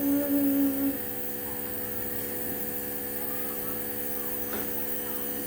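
A steady electrical hum, one even drone. A held vocal "aah" overlaps it and ends about a second in.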